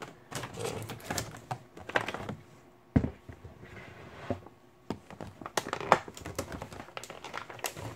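Clear plastic packaging crinkling and clicking as it is handled and pulled off a figure, with a sharp knock about three seconds in and another near six seconds.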